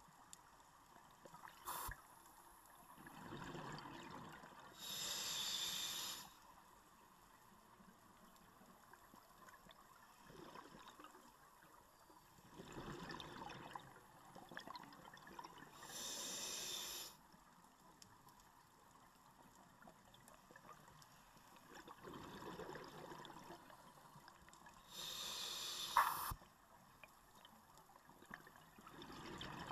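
Scuba regulator breathing heard underwater through the camera housing: a slow cycle of bubbling exhalations, each followed by a short hiss of inhalation through the regulator, about every ten seconds, three breaths in all.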